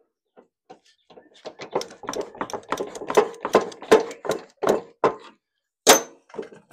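Vice grips clicking and knocking against a tensioned spring and the steel mower deck while the discharge chute cover's spring is worked loose: a quick run of metallic clicks, about four a second, then one sharp metal clack near the end.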